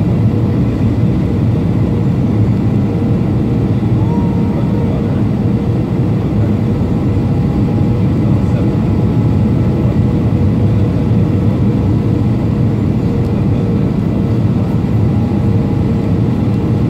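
Steady low rumble of jet engines and rushing air heard inside an airliner cabin on approach to land. A faint steady tone runs above the rumble.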